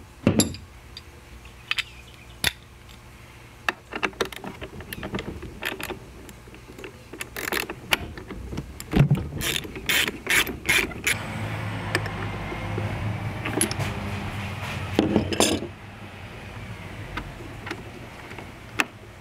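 Ratchet wrench clicking in short, irregular runs, with metal clinks, as a spark plug socket works the spark plug loose in a portable generator's small engine.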